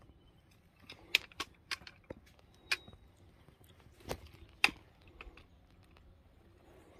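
Footsteps on a rocky ridge trail: a run of sharp, irregular clicks and scuffs on rock and grit, bunched in the first half and fading out after about five seconds.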